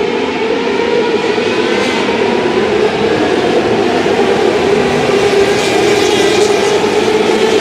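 Winged micro sprint car engines racing as a pack on a dirt oval, blending into a loud, steady drone. Higher engine whines rise over it in the second half as cars pass close.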